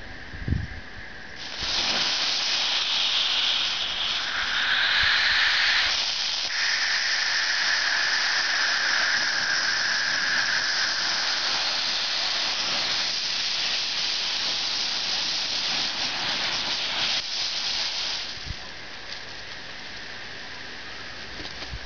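Rocket candy (potassium nitrate and sugar) motor burning in a misfire: a loud steady hiss that starts about a second and a half in and cuts back after about sixteen seconds.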